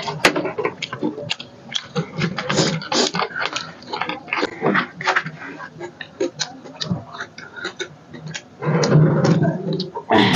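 Close-miked eating sounds: chewing and lip-smacking as chicken is eaten by hand, a steady run of short wet clicks and smacks. About nine seconds in there is a louder, denser stretch of mouth noise.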